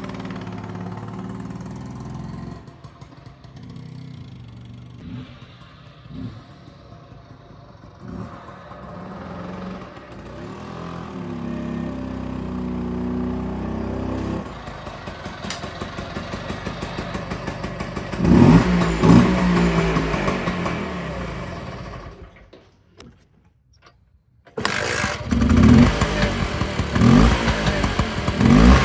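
Vintage Vespa VB1 scooter's two-stroke single-cylinder engine running and being revved, its pitch rising and falling. It drops away briefly about three-quarters of the way through, then revs loudly again.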